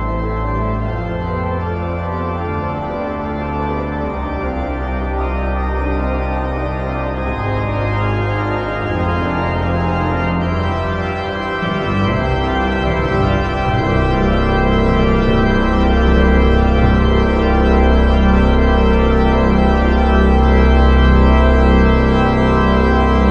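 Organ music: slow, sustained chords over bass notes that change every second or two, swelling louder through the second half.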